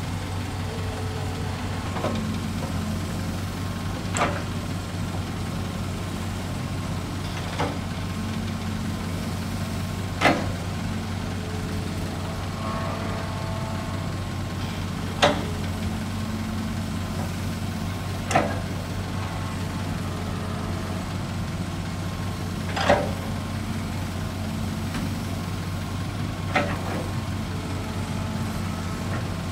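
Hitachi hydraulic excavator's diesel engine running steadily with a low drone while it loads sand into a dump truck. Sharp knocks from the bucket come every few seconds, about eight in all.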